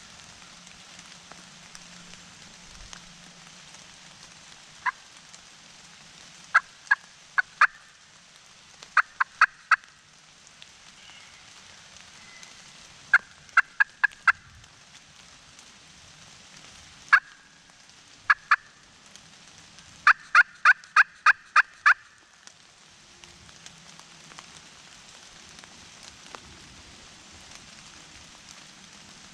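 Wild turkey yelps in short series: a lone note, runs of about four sharp notes, then a quicker run of eight, over a faint steady patter of rain.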